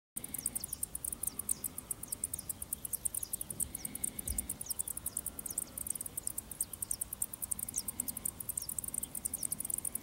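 Insect chirring: a steady run of very high, rapid pulses, about ten a second, with short falling ticks beneath about twice a second.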